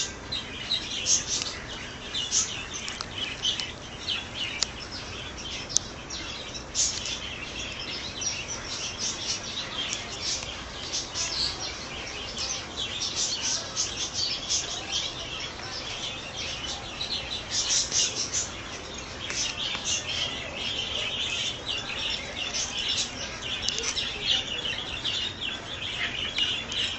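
Small birds chirping, many short high calls overlapping without a break.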